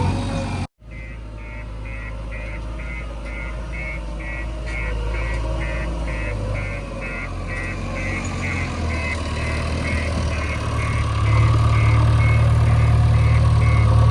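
Heavy diesel engine running, with a reversing alarm beeping steadily about two to three times a second. The engine grows louder near the end. Under a second in, the sound cuts out for a moment.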